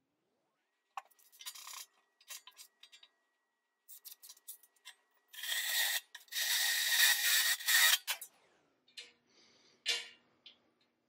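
Cordless drill running a cone-shaped carbide burr into a steel plate to countersink a bolt hole. There are short bursts of the bit catching the steel, then a loud gritty grinding for about two and a half seconds, then a few knocks as the drill is laid down on the plate.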